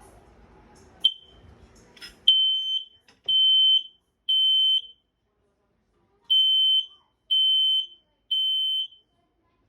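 Kidde TruSense smoke alarm being tested: a short chirp about a second in, then two rounds of three high beeps with a pause between them, the temporal-three alarm pattern.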